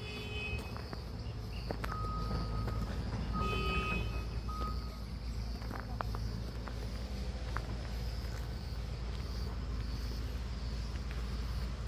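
Outdoor ambience: a steady low rumble under a constant high insect chirring, with a few short bird whistles and calls in the first half.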